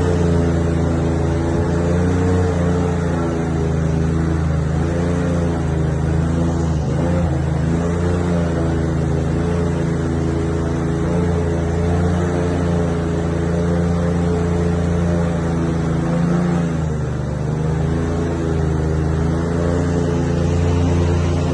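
A motor engine running steadily at a fairly constant speed, its pitch wavering slightly, with brief dips about seven seconds in and again about seventeen seconds in.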